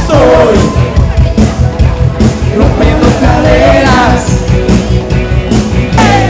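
Loud dance music with a heavy, pulsing beat and a singing voice, played over a party sound system.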